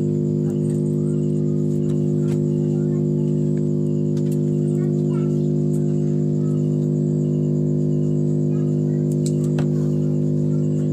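A loud, steady low hum of several even tones, with a few faint clicks over it.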